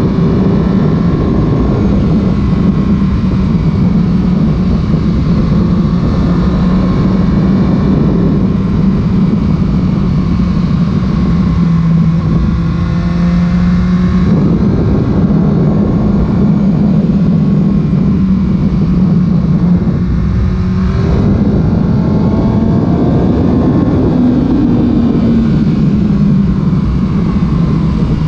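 Carbureted Yamaha YZF-R1's inline-four engine running hard under way. Its note climbs in pitch and changes abruptly about halfway through and again about three-quarters through, as the bike is ridden through the bends.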